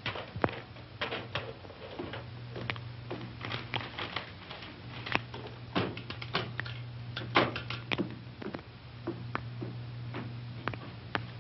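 Irregular clicks and knocks, some sharp and some soft, over a low steady hum that drops out briefly a couple of times.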